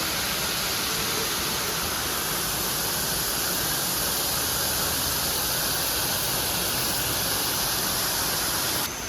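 Steady rush of falling water from a waterfall, an even hiss with no distinct pattern; it cuts off abruptly shortly before the end.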